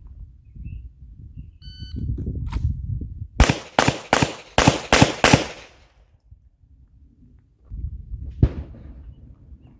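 A short electronic beep, then a handgun fired six times in quick succession over about two seconds; one more sharp knock comes near the end.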